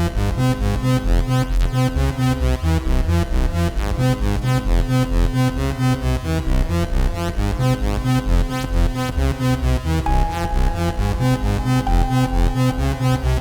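Electronic music from the Versatile software synth's one-key melody preset: a fast, pulsing synthesizer pattern over a bass line.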